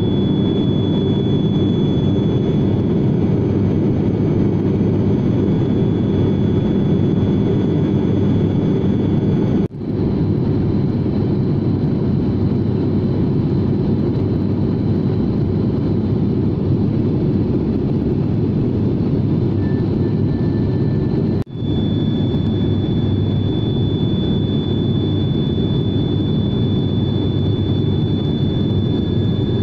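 Steady cabin drone of a turboprop airliner's engines and propellers in cruise, heard from inside the cabin: a deep roar with a thin high whine over it. The sound drops out briefly twice, about 10 and 21 seconds in.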